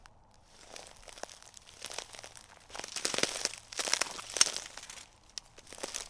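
Footsteps in hiking shoes crunching and crackling through dry, dead grass and straw. Each step crackles, quiet at first and loudest about halfway through, with a short pause near the end.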